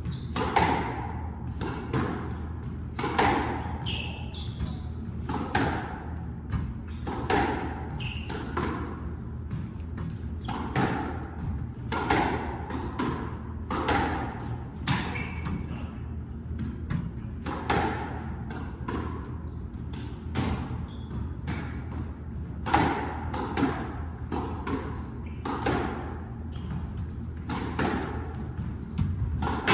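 Squash rally: the ball struck by rackets and smacking off the walls, a steady run of sharp, echoing hits about once a second, over a steady low hum.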